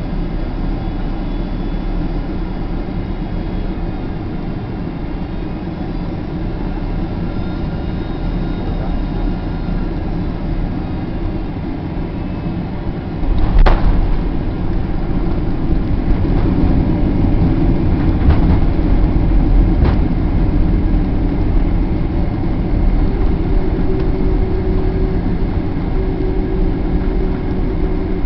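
Cabin noise of a Boeing 767-300ER on final approach: steady engine and airflow rumble. About halfway through, the wheels touch down and the noise jumps suddenly, with a sharp knock. The rumble stays louder as the jet rolls out along the runway, and a steady hum joins near the end.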